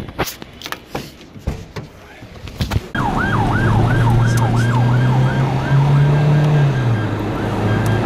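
A siren in fast yelp, its pitch sweeping up and down about three times a second, starting suddenly about three seconds in and fading out near the end, over a steady low drone. Before it, scattered knocks and clicks.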